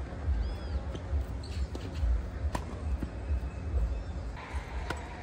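Tennis ball being hit back and forth on a hard court: a few sharp pops of racket strings striking the ball and the ball bouncing, spaced one to two and a half seconds apart.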